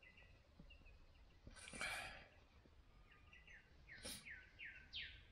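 Birds calling faintly, among them cockatoos: a few thin chirps, a harsh noisy screech about two seconds in and another around four seconds, and a quick run of short falling whistled notes in the second half.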